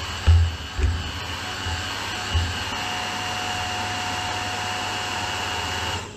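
Robot-Coupe Micromix immersion blender running steadily with its head submerged in a thick mirror glaze, with a few low thumps in the first couple of seconds; the motor cuts off just before the end.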